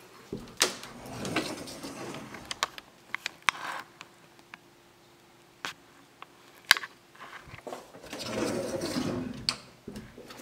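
Hinged closet doors handled by hand: sharp clicks and knocks of the latch and doors, with a rustle as they swing open about half a second in and a longer rustle as they are pushed shut near the end.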